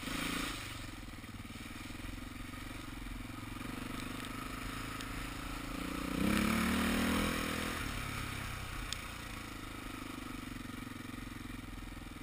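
Dirt bike engine running while riding a muddy trail, with a short blip of throttle at the start and a louder rev lasting about a second, about six seconds in.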